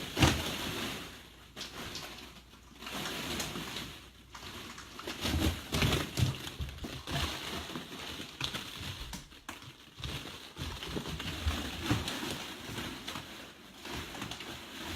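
A mass of balls in a ball pit rustling and clattering unevenly as a dog moves about in them, in swells with many small knocks.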